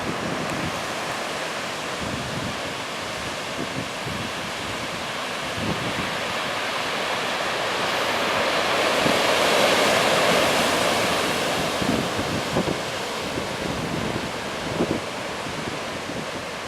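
Heavy storm surf crashing on the shore in a strong gale, with wind buffeting the microphone; a big wave surge swells to its loudest about halfway through.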